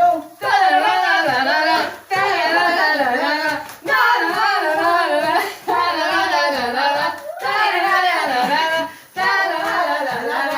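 Voices singing a song without accompaniment, in phrases about two seconds long with brief breaths between them.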